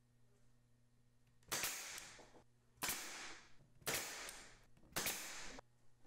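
Pneumatic nail gun firing four times, roughly a second apart, driving fasteners into a wooden beehive frame to fix it together. Each shot is a sharp snap with a short hiss after it.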